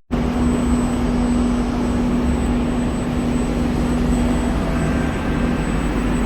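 Cabin noise of an SMRT C151B metro train running: a steady rumble with a constant low hum, after a momentary dropout at the very start.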